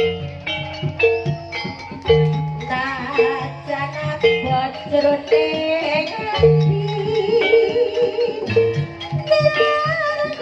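Live Javanese jaranan music: the ensemble plays a steady, even pattern of repeating pitched percussion notes over low drum-like notes, with a wavering melody line above.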